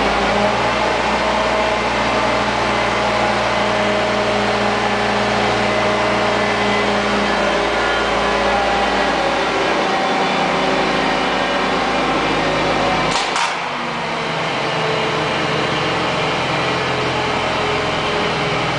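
Steady machinery drone with several whining tones, from an overhead crane hoist lifting a half of a ball mill bull gear. About 13 seconds in there is a brief metallic clatter, after which the low rumble drops away.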